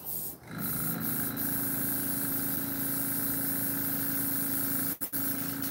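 Small airbrush air compressor switching on about half a second in and running steadily, a motor hum under a high hiss of air, with two brief dropouts near the end.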